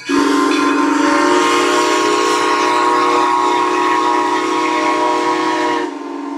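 Steam whistle of the small replica Civil War-era locomotive Edison, sounding one long, steady blast that stops about six seconds in.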